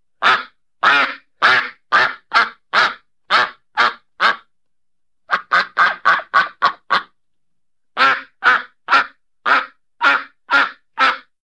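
Duck quacking in three runs of short, loud quacks, about two a second, with a quicker run of about seven quacks in the middle.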